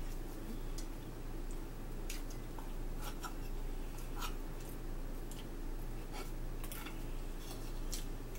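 A metal fork scraping and clinking against a china plate in several short, scattered strokes as a pancake is cut, over a steady low hum.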